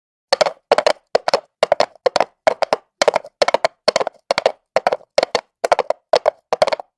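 Horse trotting on asphalt: hooves clopping in a steady trotting rhythm, in groups of two or three sharp strikes about two and a half times a second, starting after a brief pause.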